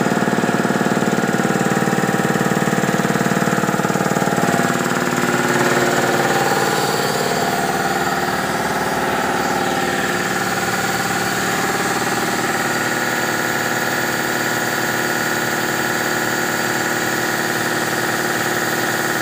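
Electric piston air compressor running, its motor and pump giving a loud, steady drone with a fast pulsing beat.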